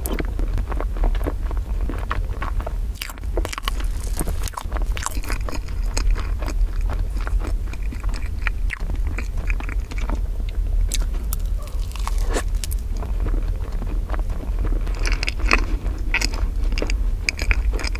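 Close-miked chewing and biting of strawberry crepe cake with whipped cream: irregular wet, sticky mouth sounds. Partway through, a hand tears off a clump of the thin crepe layers. A steady low hum runs underneath.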